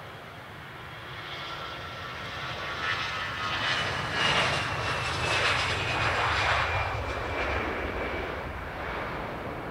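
Airbus A320's jet engines at takeoff thrust as the airliner rolls past down the runway: a broad jet noise that swells to its loudest about halfway through and then eases off, with a thin high whine sliding slowly down in pitch as it passes.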